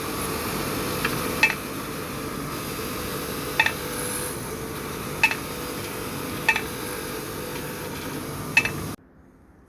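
Metal clinking: about six sharp, separate clinks spread across several seconds, over a steady workshop hum. The sound cuts off abruptly near the end.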